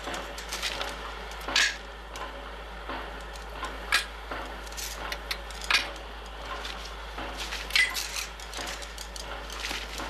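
Bolt cutters snipping through chain-link fence wire: sharp metallic snips every two seconds or so, with lighter clinks of wire between.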